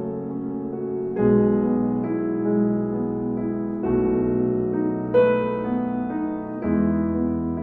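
Slow, soft piano music: held chords, with a new chord struck every second or so.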